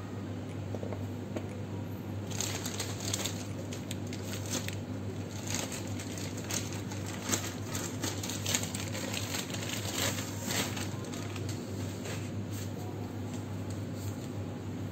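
Clear plastic bag crinkling in irregular crackles as it is handled and pulled off a new exhaust header pipe, over a steady low hum.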